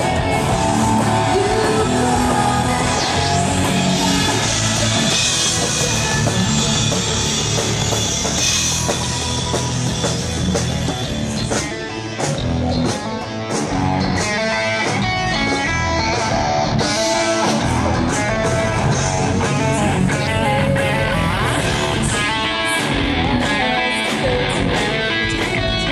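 Guitar-driven rock music playing, with a brief dip in loudness about halfway through.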